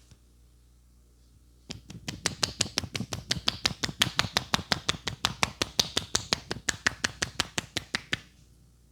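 Barber's hands striking in a rapid percussion massage: fast, even slaps, about six a second. They start just under two seconds in and stop about a second before the end.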